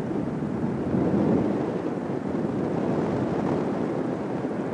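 Wind buffeting the microphone: a steady, gusting rush of noise with no engine note in it, swelling a little about a second in.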